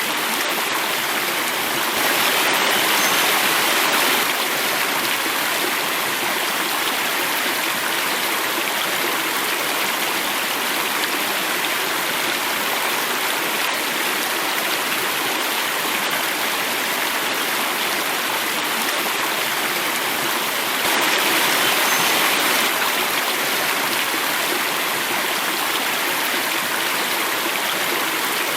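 Water running and falling in a small cascade, a steady rushing noise. It swells a little louder for a couple of seconds about two seconds in and again about twenty seconds later.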